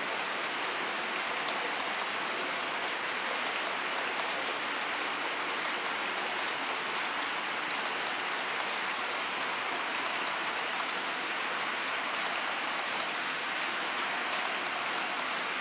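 The wheels of a long string of HO scale Trinity 31K tank cars rolling over model track: a steady, even rushing hiss with faint scattered clicks.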